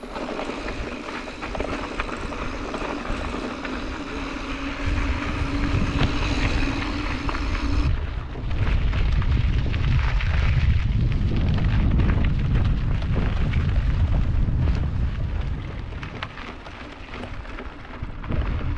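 Wind buffeting the camera microphone, a loud low rumble. A steady hum sits under it for the first several seconds and cuts off suddenly about eight seconds in.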